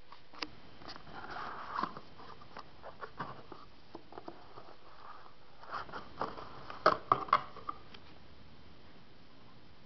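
Hands handling a boxed smartphone and its packaging: light rustling and scattered taps and clicks, with a quick run of sharp, louder clicks about seven seconds in.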